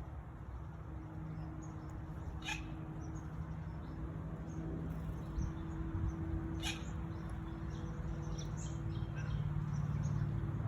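Small birds chirping faintly and intermittently over a steady low hum, with two short sharp sounds about two and a half seconds and six and a half seconds in.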